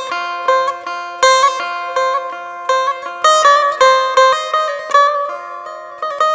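Background music: a plucked string instrument playing a melody of sharply struck notes that fade after each pluck.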